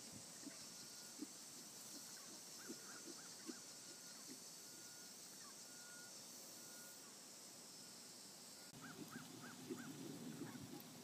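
Faint, dull hoofbeats of a horse cantering on arena sand, about one stride every three-quarters of a second, with faint bird calls. Near the end the hoofbeats grow louder and come closer together.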